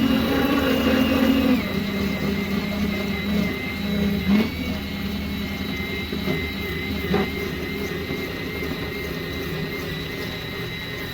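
Power tool spinning a rubber eraser wheel against the truck's paint to strip old adhesive residue: a steady motor whine whose pitch drops about a second and a half in as the wheel is pressed on, with a couple of short knocks midway.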